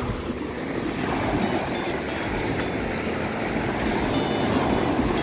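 Small waves washing up a sandy beach: a steady rushing noise that swells twice, about a second in and again near the end.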